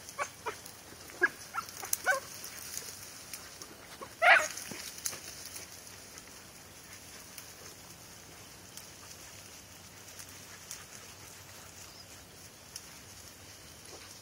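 Hounds running a rabbit, barking in short yelps out in the brush: several calls in the first two seconds, a louder one about four seconds in, then only faint sound.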